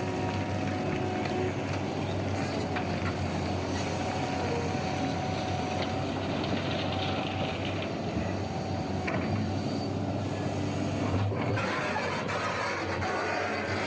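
Heavy diesel machinery running with a steady low engine drone and a constant mechanical hum, a few faint clicks and knocks over it.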